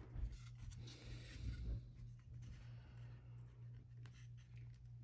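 Faint scratching and small clicks of fingers handling the opened PS4 controller's plastic parts and ribbon cable, over a low steady hum.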